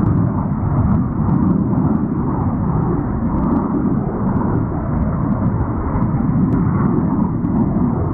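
Tupolev strategic bomber passing overhead, a steady low rumble of aircraft engines.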